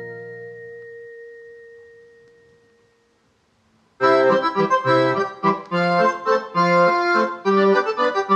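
Synclavier II digital synthesizer music: a held note fades away over about three seconds, then after a second of near silence a new passage starts with quick rhythmic chords over a bass line, in an accordion-like voice.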